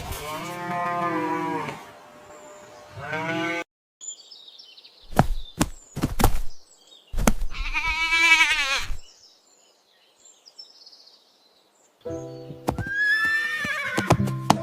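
Farm animal calls, several separate cries a few seconds apart, one of them wavering in pitch. Music comes in near the end, under another call.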